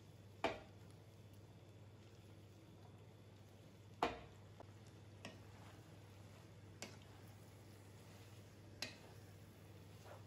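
A wooden spatula knocking against a metal cooking pan while spaghetti is tossed in it: five short sharp knocks, the one about four seconds in the loudest, over a low steady hum.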